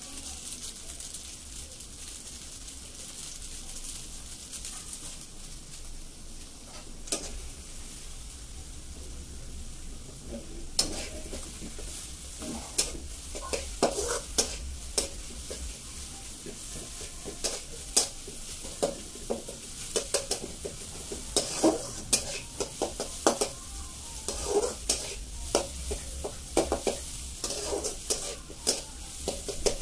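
Food frying and sizzling in a metal kadai, with a metal spatula stirring it and scraping and knocking against the pan. The scraping clicks start about a quarter of the way in and come thick and fast from then on.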